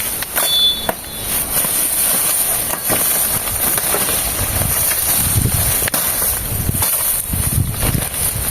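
Machete work on wind-broken peach palm fronds: scattered chopping knocks and the rustle of dry leaves, over a steady high hiss.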